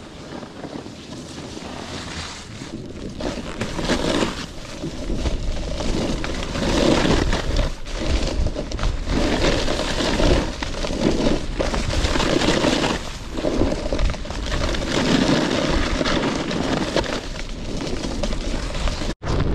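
Snowboard scraping over snow in irregular surges while wind buffets the microphone with a low rumble, growing louder over the first few seconds as speed picks up.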